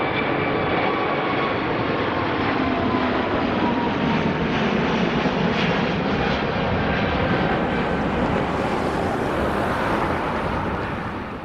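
Airbus A380's four Rolls-Royce Trent 900 turbofans at takeoff thrust as the jet climbs out past and away: loud, steady jet noise with whining tones that slowly fall in pitch, fading near the end.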